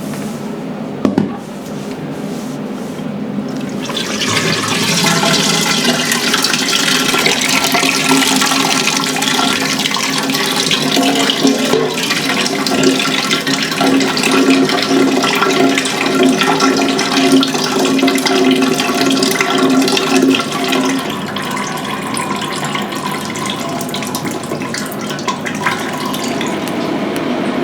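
Liquid running or pouring in a heavy stream, starting about four seconds in and easing off after about twenty seconds.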